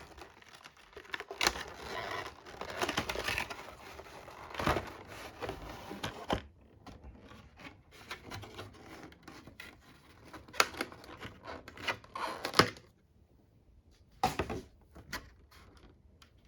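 Cardboard and plastic packaging being handled and pulled apart: rustling and tearing with scattered clicks, busy for about the first six seconds, then a few sharp taps and clicks.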